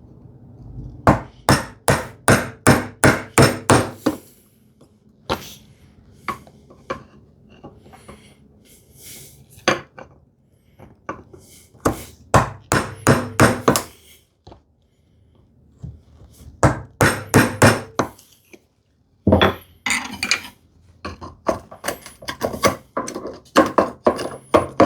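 Bevel-edge chisel struck repeatedly with a mallet, chopping out waste from a mortise in a wooden leg. The blows come in short runs of quick strikes, about two to three a second, with brief pauses between runs as the chisel is repositioned.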